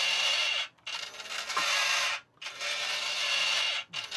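Small electric motor and plastic gearbox of a toy CAT skid steer loader grinding in runs of about a second and a half with brief pauses, as the bucket's lift arm is worked.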